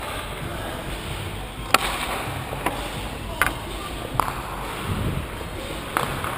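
Ice hockey play in an indoor rink: about five sharp clacks of sticks and puck on the ice, spaced roughly a second apart, over the arena's steady background noise with faint voices.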